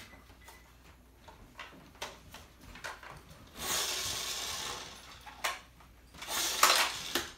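Nerf Brainsaw toy blaster being worked by hand: two noisy pulls of about a second each on its pull cord, with a few short plastic clicks around them.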